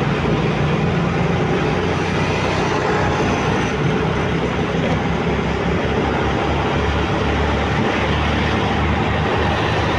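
Steady engine and road noise heard from a moving motorcycle in city traffic, with a rush of wind over the microphone.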